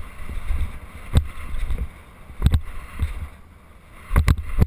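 BMX bike riding over packed dirt jumps, with wind buffeting the GoPro's microphone and tyre rumble, and sharp knocks from the bike about a second in, at two and a half seconds, and twice near the end.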